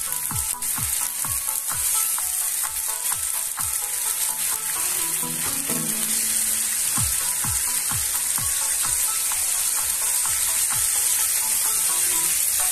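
A tempering of mustard seeds, green chillies and curry leaves sizzling and bubbling in water in a nonstick kadai, with a spatula stirring near the end. Background music with a steady beat plays underneath.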